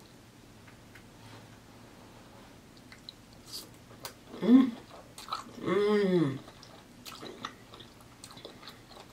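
A woman chewing a sauce-coated shrimp with soft wet mouth clicks, and two closed-mouth "mmm" hums of enjoyment about halfway through; the second hum is longer and rises then falls in pitch.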